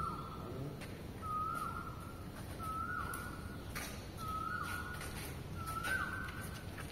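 A repeated whistle-like call, one about every second and a half; each is a held high note that ends in a quick downward slide. A few sharp knocks fall in between.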